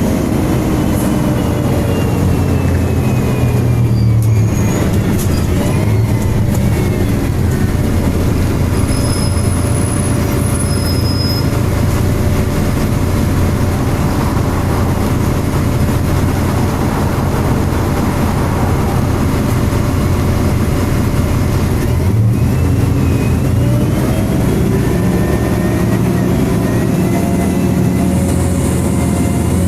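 Alexander Enviro 300 single-deck bus on a MAN chassis heard on board under way: diesel engine and cooling fan running with a steady whine. The pitch falls, breaks about four seconds in and again about twenty-two seconds in, and rises again each time.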